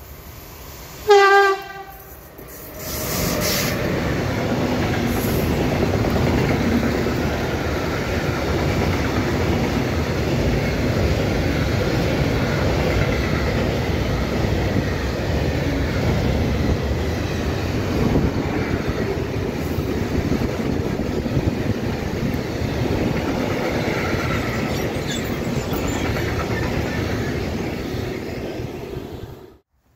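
Electric locomotive sounding one short horn blast about a second in, then passing at the head of a freight train of hopper wagons, its wheels rumbling and clattering over the rails. The passing noise ends suddenly near the end.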